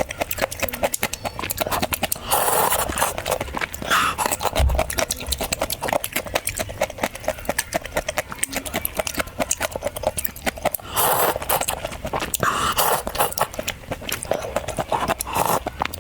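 Close-miked eating: crunchy chewing with rapid crackling clicks, broken by a few short, louder noisy moments, likely slurps.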